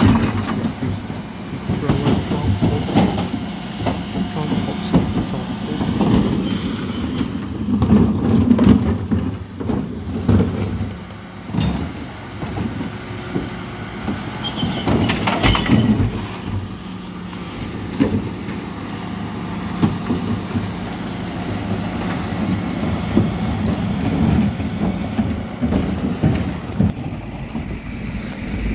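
Mercedes Econic bin lorry running steadily while its rear Terberg bin lift raises and tips blue recycling wheelie bins, with repeated knocks and clatters as the bins are lifted, shaken and the recycling drops into the hopper.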